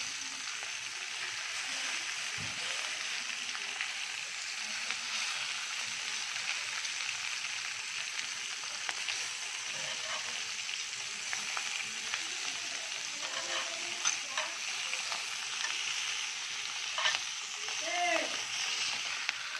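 Bacon-wrapped beef tenderloin steaks sizzling steadily in a hot cast-iron grill pan, with a few sharp clicks in the second half.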